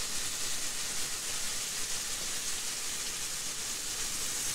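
Steak searing in a hot skillet: a steady sizzle.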